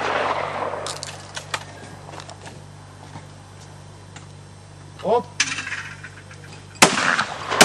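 Shotgun fire at a clay shooting stand: the echo of a shot fades at the start, a short shout comes about five seconds in, and about a second and a half later a loud shotgun blast rings out, followed right at the end by a second sharp crack.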